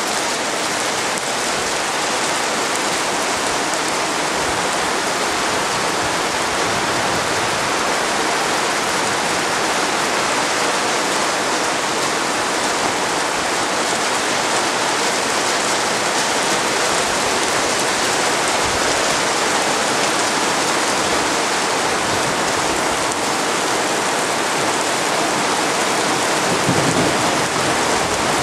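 Hail and rain falling heavily in a hailstorm, a dense, steady hiss with no let-up.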